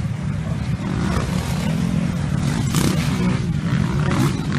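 Several motocross bikes' engines running and revving as riders race through a dirt-track corner, the engine note wavering up and down.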